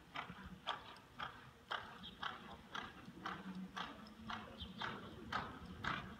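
Hoofbeats of a ridden horse moving at speed on arena dirt, a regular beat about twice a second.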